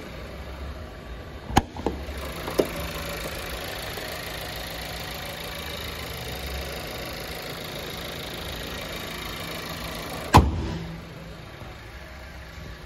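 Volkswagen Jetta's 1.4-litre turbocharged four-cylinder idling steadily, louder while the hood is open. Sharp latch clicks come near the start as the hood is raised, and about ten seconds in the hood slams shut with one loud thump, after which the idle sounds quieter.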